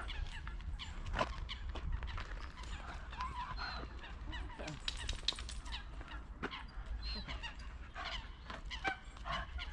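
Waterfowl calling: many short, overlapping calls from a mix of lake birds, with a quick run of repeated notes near the end, over a low steady rumble.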